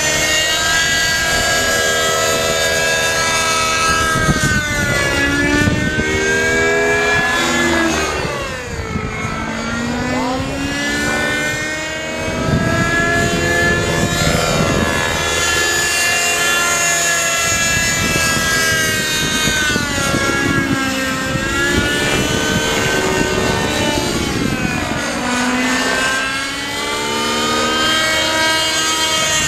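Raptor 50 SE V2 nitro RC helicopter in flight: its two-stroke glow engine and rotor running at high speed in idle-up, the note rising and falling repeatedly as it manoeuvres. Its tuned pipe is loose, and the engine is running hot.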